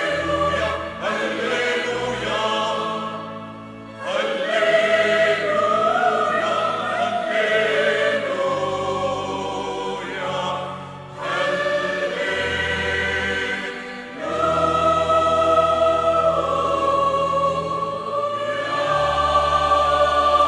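Mixed choir of men and women singing a hymn, accompanied by a church organ holding long low notes under the voices. The singing pauses briefly twice, between phrases.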